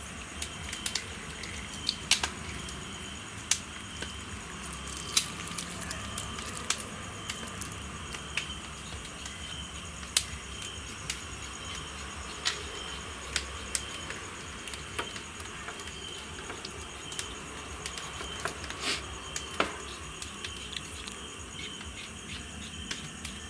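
Hands working lemon juice and marinade into a whole raw chicken: soft wet squishing with scattered light clicks and taps at irregular intervals.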